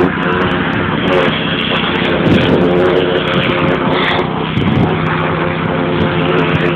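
Gas-engine pressure washer running steadily under load, with the noise of its water jet spraying onto wooden deck boards to strip the dark weathered stain.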